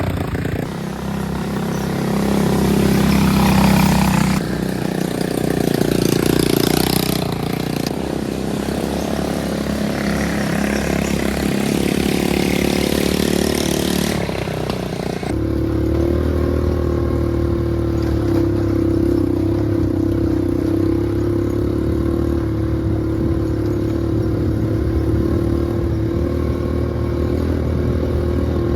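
Small off-road vehicle engine (ATV or buggy) running while riding, with rushing noise and rattling that rise and fall over the first half. About halfway through it settles into a steadier engine note.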